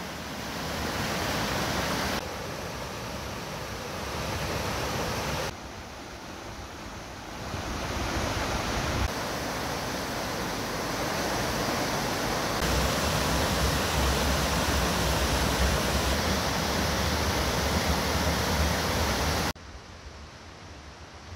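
Steady outdoor rushing noise with no distinct events. It changes abruptly in level several times and carries a low rumble through its later part.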